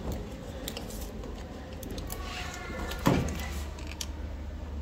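Handling of paper sticks and cardboard while they are glued in place: light clicks and taps, with a sharper knock about three seconds in, over a steady low hum.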